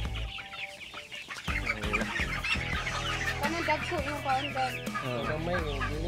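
Chickens clucking, many wavering calls overlapping, over a low steady hum.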